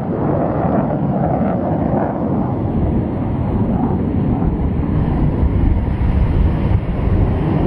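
JF-17 Thunder fighter jet in display flight, its single Klimov RD-93 turbofan heard from the ground as a loud, steady, deep rumble, at the end of a high-G turn.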